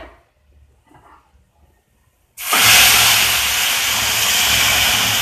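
Milk poured into a hot kadhai of ghee-fried vermicelli, hissing loudly as it boils on contact and throws up steam. The hiss starts suddenly a little over two seconds in and holds steady.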